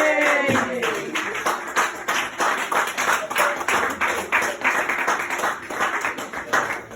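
A high-pitched cheer of "yay!", then a small group of people clapping steadily for several seconds.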